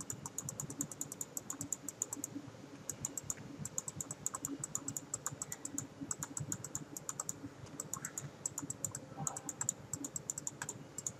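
Computer mouse left-clicked rapidly over and over, in runs of many quick clicks a second with short pauses between the runs.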